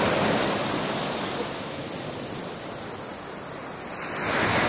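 Surf breaking and washing up the beach, easing off in the middle and swelling again near the end as the next wave comes in.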